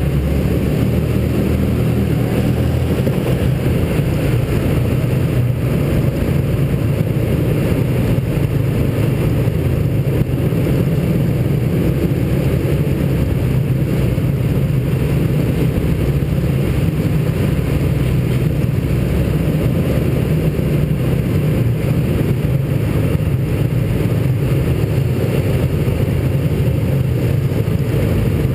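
Small engine of a mini hotrod running steadily while it drives, heard from on board the car, with no changes in pace.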